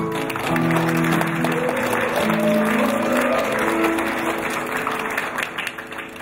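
Audience applause breaking out at the end of a choir's hymn, with a few held notes still sounding underneath at first; the clapping thins and fades near the end.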